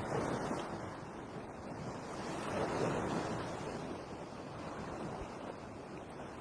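Heavy rain falling in a steady rush that swells and eases every couple of seconds.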